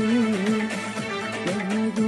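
Turkish folk music: plucked string accompaniment under a long, wavering, ornamented melodic line.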